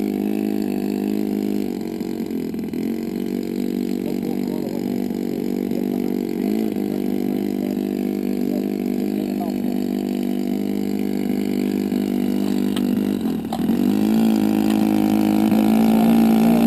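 Radio-control model airplane's fuel engine running steadily, with a few brief dips in pitch. Near the end its pitch and level rise as the throttle is opened up.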